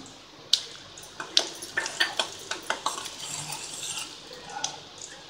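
Steel spoon stirring and scraping onions frying in a stainless steel kadai, with repeated clinks of metal on metal over a light sizzle of hot oil.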